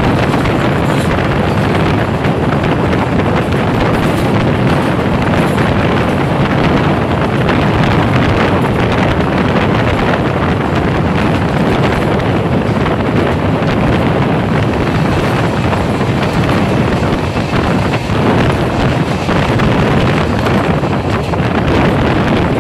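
Steady, loud wind buffeting the microphone over the running noise of the moving Punjab Mail express train's coach wheels on the rails, heard from an open coach doorway.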